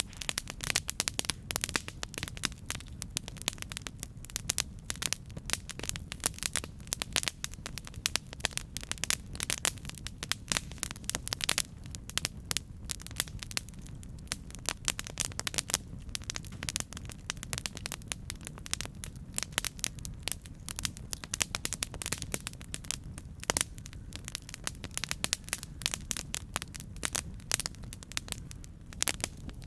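Campfire burning: wood crackling and popping in dense, irregular snaps over a steady low rumble of flame.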